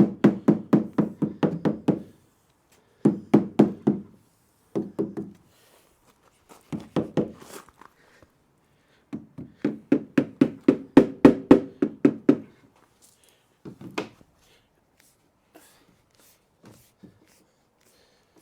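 A rubber door seal being knocked onto the flange of a van's sliding-door opening: rapid dull knocks at about five a second, in several bursts with short pauses, seating the seal into the corners.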